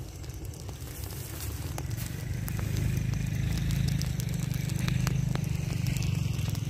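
Burning rice-straw pile crackling, with many sharp pops over a low rumble that swells about two seconds in.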